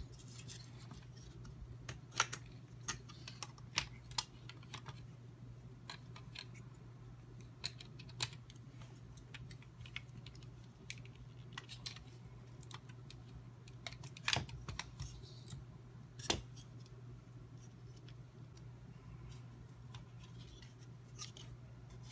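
Scattered light clicks and taps of hard plastic goggle housing parts being handled and fitted, a few sharper knocks among them, over a steady low hum.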